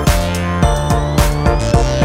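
Electronic background music with a steady beat and a synth tone rising in pitch through the second half.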